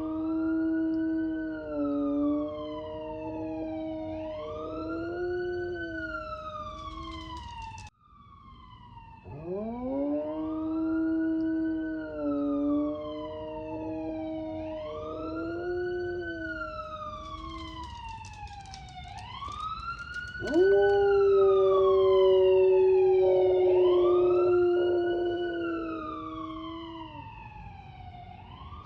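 A dog howling along with a wailing siren. The siren sweeps down and up every few seconds while the dog holds long, steady howls. The clip cuts off about eight seconds in and starts over, and the loudest, longest howl begins about two-thirds of the way through.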